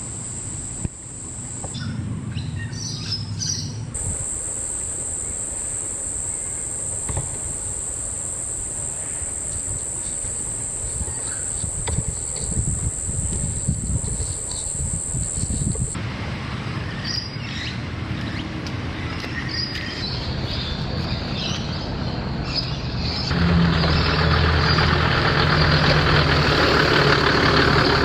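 Outdoor bush sounds: birds chirping and a steady high insect drone. About 23 seconds in, an engine starts running loudly with a rushing hiss.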